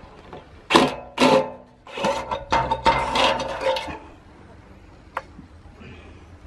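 Cordless drill-driver run in short bursts on screws in a chainsaw mill's metal guide rail: two quick blips about a second in, then a run of about two seconds with metallic rattling.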